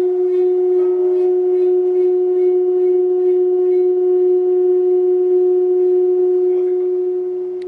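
A single steady pitched tone with faint overtones, held unbroken and fading out near the end: the kind of sustained tone used to set a Chladni plate or water vibrating into sound figures.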